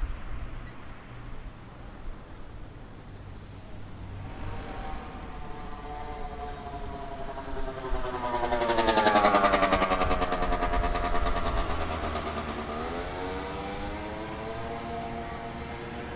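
City street traffic: a motor vehicle's engine grows louder and passes close about halfway through, its pitch falling as it goes by, then another engine note rises, over a steady low rumble of traffic.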